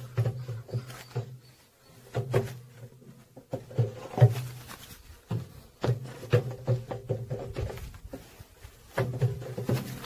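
Wooden honey frames knocking and scraping as they are loaded into the basket of a stainless-steel honey extractor, with honeybees buzzing close by in short spells.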